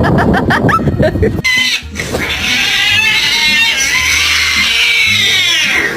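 A cat's long, high-pitched, wavering cry, held for about four seconds after a shorter, choppier stretch of sound at the start.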